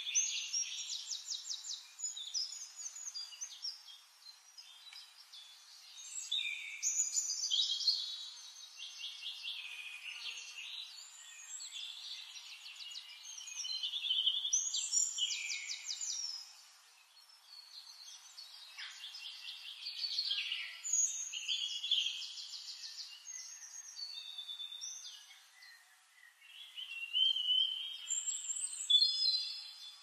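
Several songbirds singing in a forest, with overlapping fast trills and warbled phrases that swell in loud bursts and then thin out for a few seconds in between.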